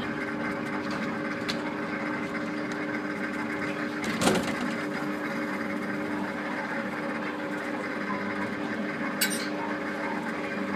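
Suspended ride car running along its overhead steel rail: a steady motor hum with several fixed tones, a single knock about four seconds in and a sharp click near the end.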